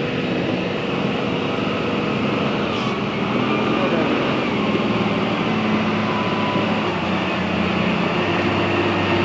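Excavator's diesel engine running steadily, a low even hum that grows a little louder partway through.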